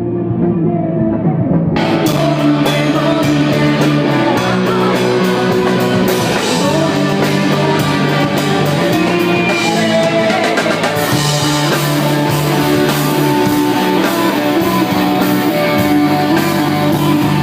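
Rock band playing live: guitars and bass ringing, with drums and cymbals coming in about two seconds in and carrying on with the band.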